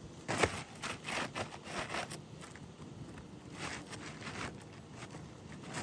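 Irregular scraping and crackling of a roof snake being worked under a 3-tab asphalt shingle, prying it loose, in short clusters in the first two seconds and again just past the middle.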